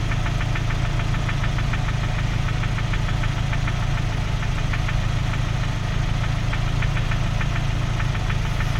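Ford Focus II 1.6 100 hp petrol engine idling with no load, with a rapid, light metallic ticking over its steady running hum. It is a foreign metallic knock at 157,760 km whose cause the owner does not know.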